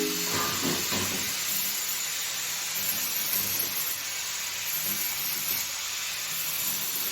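Welding arc burning with a steady hiss.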